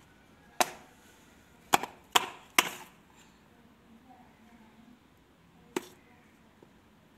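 A child's plastic sandal knocked against a stone floor: five sharp clacks, one under a second in, three in quick succession around two seconds in, and a last one after a pause.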